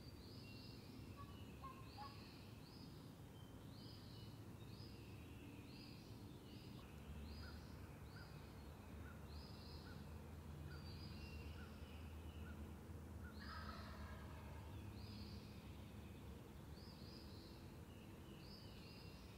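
Faint wild turkey gobble, one rattling call about two-thirds of the way in, over a songbird repeating a short high note about once a second and a low background rumble.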